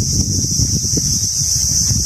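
Steady, high-pitched droning of insects, with wind buffeting the microphone in a low, fluttering rumble.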